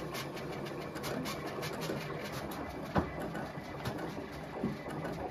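CAMM-1 vinyl cutter running, its cutting head and blade moving over the vinyl with a steady mechanical whir and continual ticking, and one sharp click about three seconds in.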